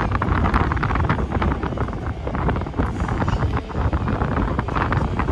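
Wind buffeting the microphone: a loud, uneven low rumble that rises and falls with the gusts.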